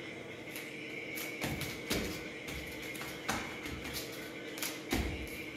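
Bare feet thudding on a foam floor mat as a small child dances: a few dull thuds, the loudest about two seconds in and near the end. Faint music plays underneath.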